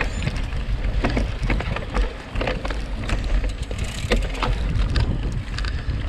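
Mountain bike ridden fast over a rough gravel track: a steady low rumble of wind on the microphone, with frequent sharp clicks and rattles from the bike and tyres over the ground.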